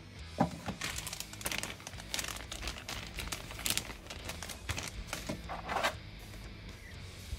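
Clear plastic packaging of an action figure, a plastic bag and a plastic blister tray, crinkling and crackling as it is handled, in irregular bursts, loudest about half a second in and again near six seconds.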